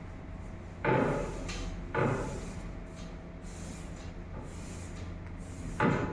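Three short clunks from objects being handled, about a second in, two seconds in and near the end, over a steady hum.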